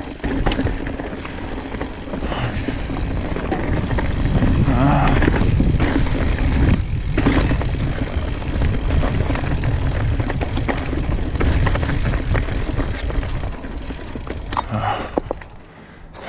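Mountain bike rolling down a rocky singletrack: a steady rumble of tyre and wind noise with many clatters and knocks as the bike rattles over rocks, easing off near the end as the rider slows.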